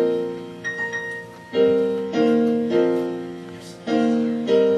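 Piano accompaniment playing a short instrumental interlude: chords struck about every half second to second, each ringing and fading before the next.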